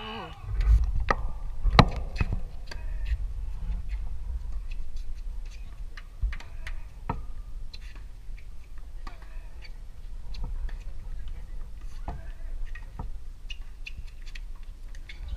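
Tennis balls struck by rackets and bouncing on a hard court during a point, heard as a string of sharp, irregularly spaced pops. A low rumble lies under them, strongest in the first few seconds.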